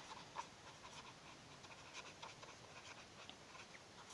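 Faint scratching of a pen writing on paper, in short scattered strokes.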